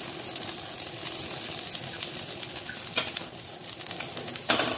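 Masala-coated raw banana slices sizzling in a little oil on a dosa griddle, a steady hiss. A metal spatula clicks against the griddle about three seconds in and scrapes on it near the end.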